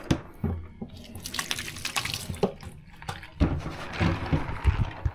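Water splashing and sloshing in a basin, with irregular knocks and clatters of plastic keycaps being handled and washed in soapy water.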